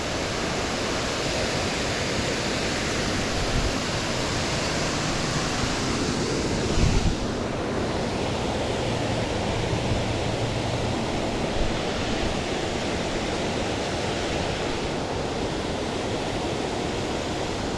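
Creek waterfall rushing in a steady, even roar of falling water, with a brief low thump about seven seconds in.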